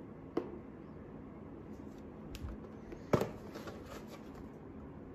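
Handling noise: a light tap about half a second in, then a sharper knock about three seconds in followed by a second or so of crinkly rustling, as a carded plastic blister-pack toy package is handled.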